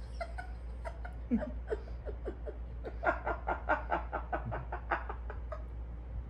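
A woman laughing, a run of short giggles that quickens into a rapid string of laughs, about five a second, from about three to five seconds in.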